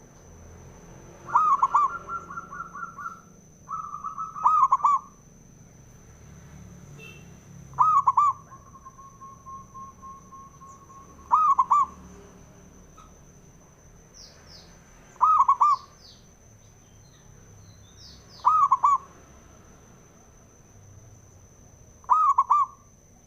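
Zebra dove (perkutut) cooing: about seven loud, repeated rolling coo phrases a few seconds apart, some running on into a fast trill. A long, even trill follows one phrase. A thin, steady high whine runs underneath.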